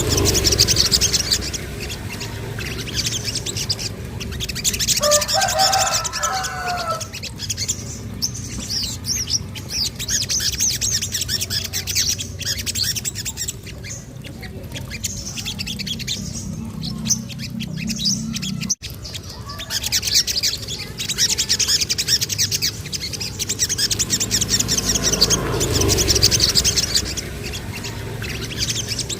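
Sogon songbird singing a rapid run of high, thin chirps and trills in repeated waves, with a few lower gliding notes about five seconds in, over a steady low hum.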